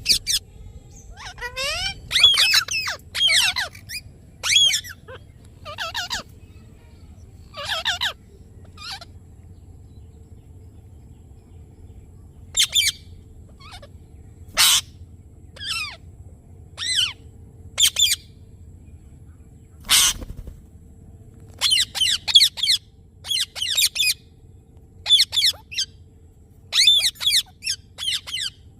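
Indian ringneck parakeet giving short, shrill squawks and chirps in quick clusters. A few seconds of pause come about a third of the way in, then the calls resume.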